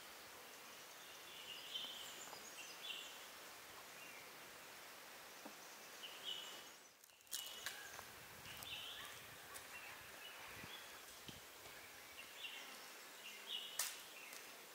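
Faint forest ambience with scattered short, high bird chirps and a few sharp clicks. The background briefly drops out near the middle.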